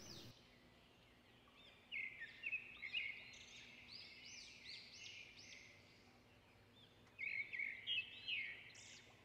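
Faint bird chirping: a run of short chirps that rise and fall in pitch starts about two seconds in and lasts a few seconds, and a second burst comes near the end.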